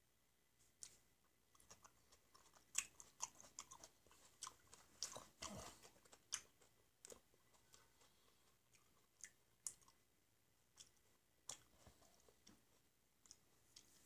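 Black grapes being peeled by hand at the lips and chewed: scattered sharp wet clicks and smacks, busiest a few seconds in, with a longer, louder spell about five seconds in, then sparser.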